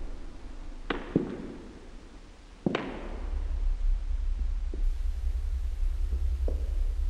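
Three sharp hits in the first three seconds, each with a short echoing tail, then a steady low rumble with a few fainter knocks.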